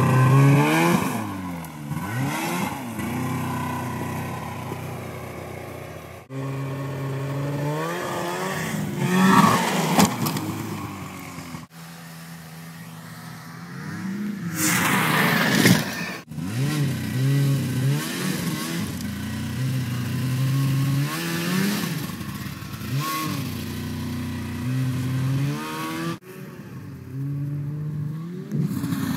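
Ski-Doo two-stroke 600 cc snowmobile engines running and revving, rising and falling in pitch again and again as the sleds accelerate and throttle off. The sound comes in several separate short runs, with the loudest rush about halfway through.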